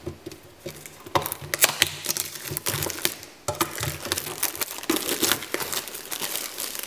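Plastic shrink wrap being torn and peeled off a boxed toy tin, crinkling and crackling irregularly with sharp snaps.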